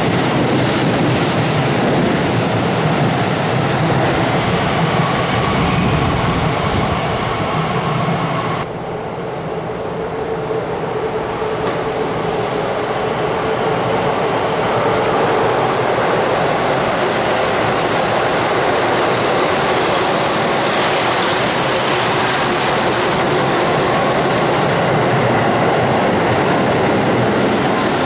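Keihan electric trains in an underground station. A navy-and-white Keihan 3000 series train runs past with a loud rumble and wheel noise that cuts off abruptly about a third of the way in. Then a steadily growing rumble builds as a red-and-yellow Keihan 8000 series train comes in near the end.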